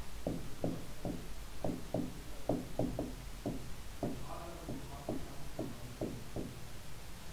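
Pen tapping and knocking on an interactive whiteboard as letters are written by hand: light, uneven taps, about two a second.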